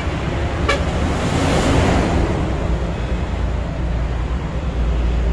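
Road traffic going by: a steady low rumble with a vehicle swelling past about one to two seconds in. There is a single light metallic click near the start.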